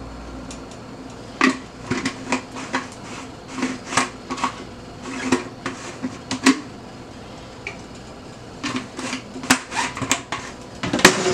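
Kitchen dishes and utensils clinking and knocking together in quick, irregular runs. One run lasts about five seconds, then there is a short pause, and another run starts near the end.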